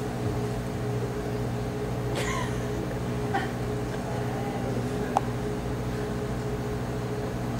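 Steady low hum made of several even, unchanging tones, with a faint brief voice-like sound about two seconds in and a sharp click about five seconds in.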